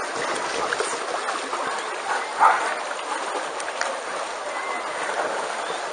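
Pool water splashing and sloshing as huskies wade through it, over a steady mixed din of many dogs and people. About two and a half seconds in, a short, louder call stands out.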